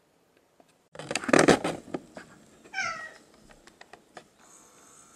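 A loud noisy scuffle or clatter about a second in, then a cat meows once, a short call falling in pitch, about three seconds in.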